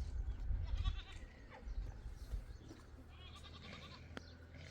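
Sheep bleating, twice: a short bleat about a second in and a longer, wavering bleat a little past three seconds.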